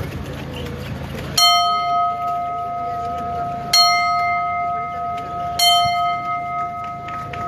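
A bell struck three times, about two seconds apart, each stroke ringing on with a clear tone until the next.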